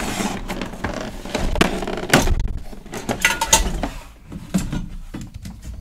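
Stiff clear plastic blister tray crackling, creaking and clicking as a large plastic toy figure is worked loose from it. The loudest sharp clicks come in the middle, and the handling thins out near the end.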